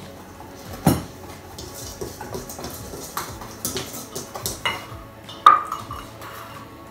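A utensil stirring and clinking in a metal mixing bowl of dry baking ingredients, with a sharp knock about a second in, a run of small clinks, and a louder ringing clink about five and a half seconds in.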